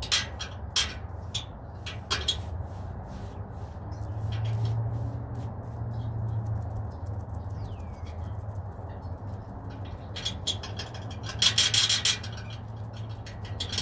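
Foam paint brush dabbing white paint onto the edge of a wooden fence board: a run of soft, irregular taps, thickest a little before the end, over a steady low hum.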